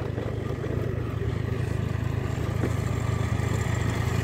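Small four-wheel farm tractor's engine running steadily as it drives toward the listener, growing gradually louder as it approaches.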